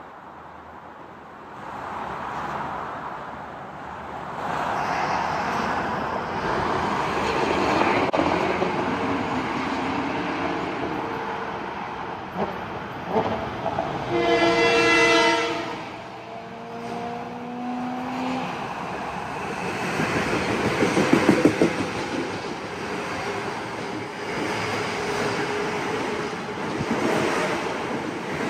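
Metro-North M8 electric multiple unit approaching and passing at speed: a rumble on the rails builds, the horn sounds one chord of about a second and a half near the middle, followed by fainter tones falling in pitch. Then comes loud wheel clatter as the cars pass close by.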